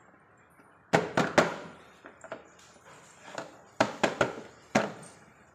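Sharp knocks and clacks of hard objects being handled: three in quick succession about a second in, then four more around four seconds in.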